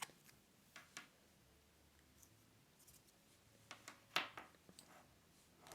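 Faint handling noise from a USB cable and its plastic connectors being moved about: a few light clicks and taps, the loudest a short cluster about four seconds in.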